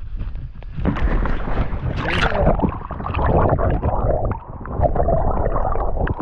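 Water sloshing, gurgling and splashing against the side of a kayak, with wind rumbling on the microphone; a sharper splash comes about two seconds in.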